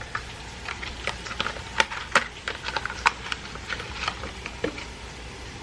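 Potatoes frying in oil in a pan: a steady faint sizzle with many irregular sharp crackles and pops.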